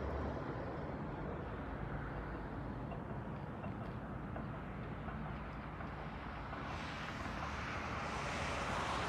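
Steady outdoor ambient noise with a low rumble, growing louder and brighter from about seven seconds in.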